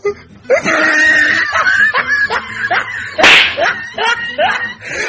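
Excited crowd voices, with short repeated yelps and laughs, and one sharp smack-like crack about three seconds in.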